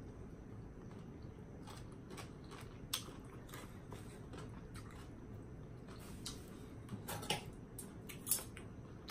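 Faint chewing and eating sounds, with a few soft clicks and ticks scattered through, over a low steady background hum.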